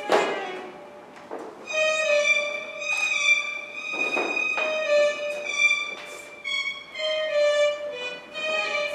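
Violin playing slow, held notes, with a few brief noises over it near the start and around the middle.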